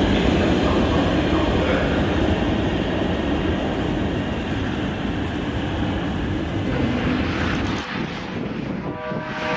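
Train running on the rails, a steady, dense rumble. About eight seconds in the sound changes abruptly, and near the end a short tone with several pitches sounds.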